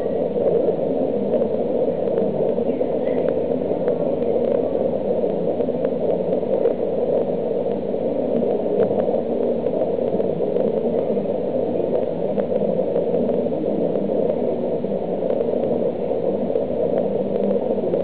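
Steady low rushing background noise of a public aquarium hall, with water circulating through the tank's filtration.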